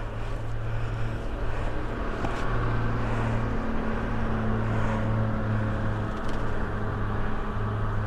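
Steady low engine hum of a motor vehicle running, over general outdoor noise.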